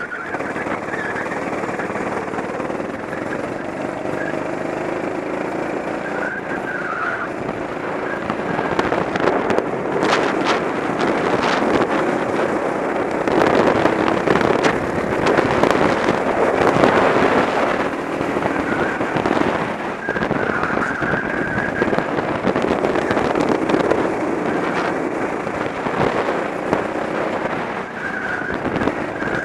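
Go-kart engine running under load as the kart laps a track, heard from an onboard camera. It gets louder about a third of the way in and eases off near the end.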